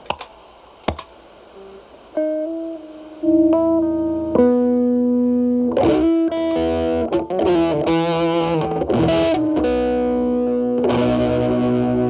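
Two sharp clicks of a pedal switcher's footswitch being pressed, then an SG-style electric guitar with humbuckers played through a distortion pedal into a Marshall Valvestate amp's clean channel: single notes from about two seconds in, building into chords and a busy passage, then held chords. This is the clean-up test, the guitar's volume rolled back so the distortion thins out.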